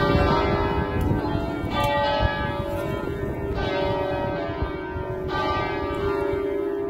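Plenum of six bronze church bells cast by the Cavadini foundry in 1953, a major scale from C3, rung together in the Veronese system. Their overlapping tones ring on while fresh strokes land roughly every second and three-quarters.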